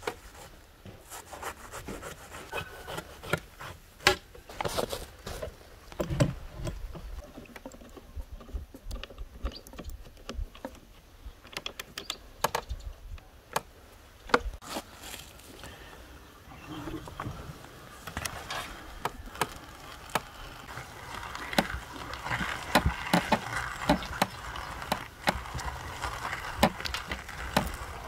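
Scattered knocks and clicks of handwork with a knife and a hand-cranked metal meat grinder being clamped to a wooden table. In the second half comes a denser scraping, squelching rustle with frequent clicks as the grinder is cranked, forcing sprouted wheat through its plate.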